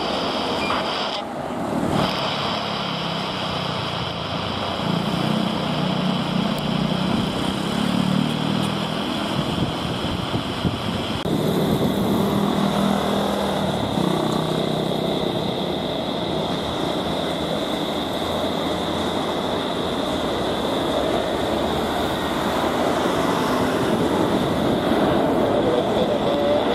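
Airliner jet engines on the runway: an Airbus A320 with IAE V2500 engines rolling out just after touchdown. About eleven seconds in, a cut switches to a Boeing 737-800 with CFM56 engines taxiing, its engines giving a steady whine over the rumble.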